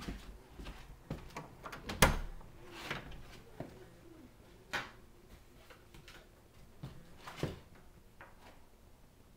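Scattered knocks and thumps from someone walking through small cabin rooms and passing through doorways, the loudest thump about two seconds in.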